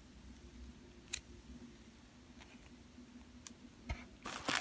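Quiet handling of a squishy bun on a red ball-chain keychain: faint hum with a few soft, separate clicks. Just before the end, a plastic mailer bag starts to rustle.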